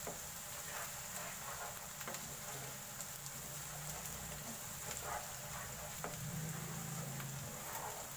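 Chopped onions sizzling and crackling in hot oil in a nonstick pan, stirred with a wooden spatula that scrapes and taps against the pan now and then.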